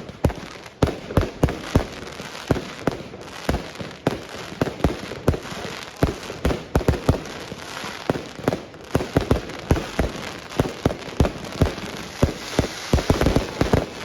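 Fireworks going off in a rapid, irregular run of sharp bangs, several a second, with a denser crackling patch near the end.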